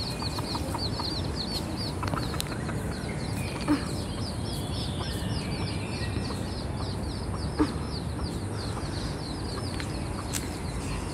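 Chicks peeping steadily, a rapid string of short high-pitched peeps several a second, with two short low clucks from the mother hen, one about a third of the way in and one about two-thirds in.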